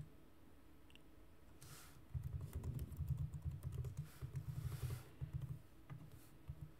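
Typing on a computer keyboard: quiet at first, then a quick run of keystrokes starts about two seconds in and lasts a few seconds, with a few single key presses near the end.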